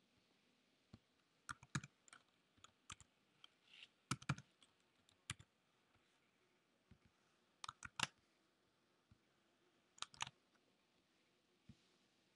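Faint computer keyboard typing: irregular clusters of keystrokes with short pauses between them.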